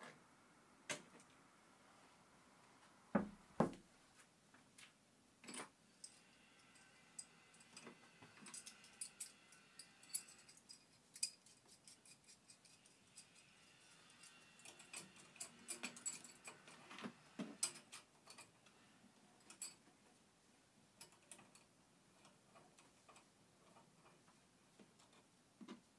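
Scattered clicks, taps and knocks of hands working the plastic cowl air-intake grille and its clips loose, with two louder knocks about three seconds in and runs of quick ticking and faint squeaks in the middle.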